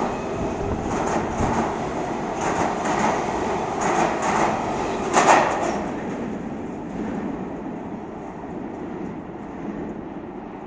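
Los Angeles Metro B Line subway train running on the rails, with repeated wheel clicks. It is loudest about five seconds in, then fades as it moves away.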